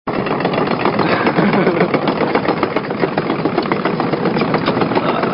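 Excavator's diesel engine running steadily with a dense, even rattle of fine ticks.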